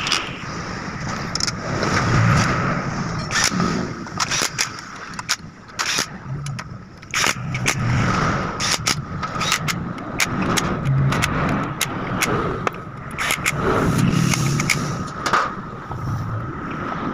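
Electric drill driving in the bolts of a scooter's engine side cover in several short runs, with sharp clicks and clinks of metal parts and tools in between.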